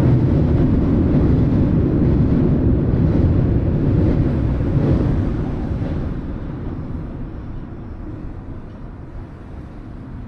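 Freight train rolling across a railway drawbridge: a steady low rumble that fades away from about six seconds in as the train moves off.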